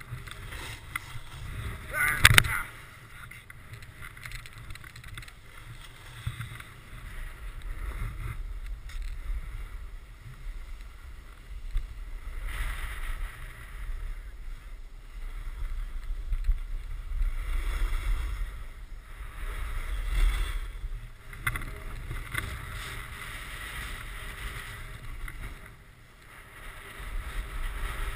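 Snowboard sliding and scraping over packed snow, rising and falling in waves as the board turns, with wind rumbling on the camera's microphone. There is one sharp knock about two seconds in.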